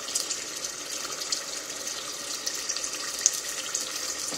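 Pot of blended tomato, pepper and onion base sizzling in oil on the stove: a steady hiss with small crackles throughout.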